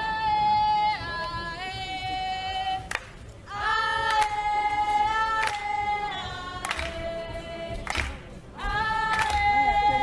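A group of voices chanting in unison, in long held notes that step down in pitch at the end of each phrase, with short pauses about three seconds in and again near eight seconds. A sharp knock falls in each pause.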